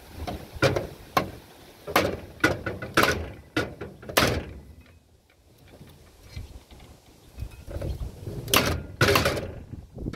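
Irregular metal knocks and clanks from tools working on a dismantled portable generator, some ringing briefly, with a quieter spell midway.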